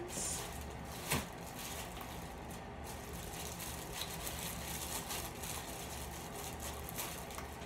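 Faint rustling and light clicks of items being handled in a cardboard subscription box, over a low steady room hum, with one sharper click about a second in.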